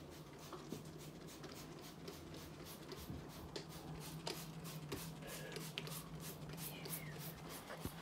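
Faint rustling and scattered light knocks of things being handled, over a steady low hum.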